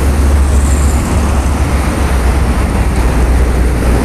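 Steady toll-road traffic noise: passing cars and trucks blend into one even wash over a heavy low rumble.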